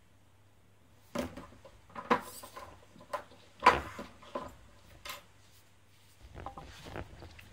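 Tools and robot parts handled on a wooden table: a metal wrench and small parts set down and knocked, giving a series of clicks and clatters over a few seconds, loudest about halfway. Softer rustling and handling near the end.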